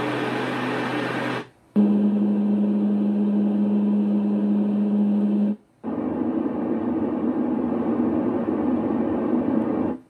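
Renpho white noise sleep machine playing its built-in sounds through its speaker, switched from one sound to the next twice, each change marked by a brief silence. First a noise with a steady low hum, then a noise with a strong steady low tone and a hiss above it, then a duller rushing noise without the high hiss.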